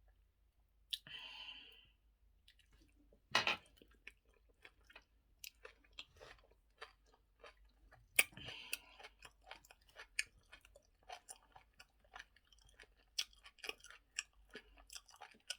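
A person chewing a mouthful of eba with okra soup close to the microphone: irregular wet mouth clicks and smacks, with a few louder ones about a second, three and a half seconds and eight seconds in.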